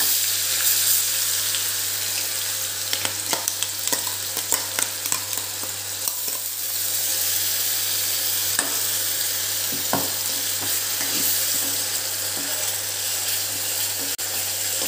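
Onion, garlic and ginger paste sizzling in hot oil in a metal kadhai as it is sautéed, stirred with a metal ladle that scrapes and clicks against the pan. There is a quick run of clicks about three to five seconds in and a few single ones later.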